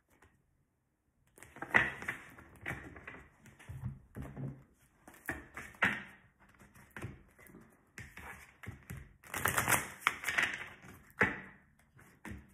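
A deck of tarot cards being shuffled by hand: irregular taps and flicks of card against card, starting about a second in, with a denser run of shuffling a little past the middle.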